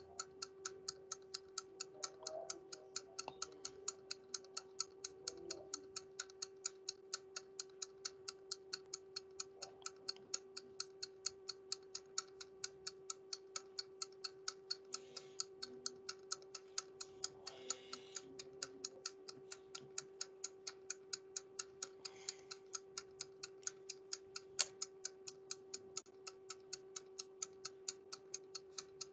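Faint, fast and even ticking, about four ticks a second, from a timer counting down a timed exercise, over a faint steady hum.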